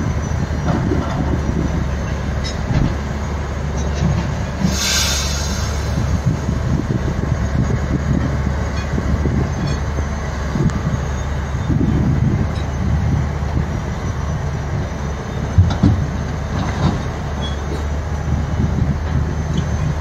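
Heavy diesel engines of a Tata Hitachi 470 hydraulic excavator and a Volvo dump truck running steadily with a low rumble as rock is loaded. A brief hiss comes about five seconds in, and a sharp knock near the end.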